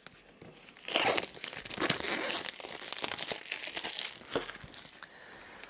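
Plastic shrink-wrap being crinkled and torn off a cardboard Blu-ray slipcase: a dense run of crackling that starts about a second in and eases off near the end.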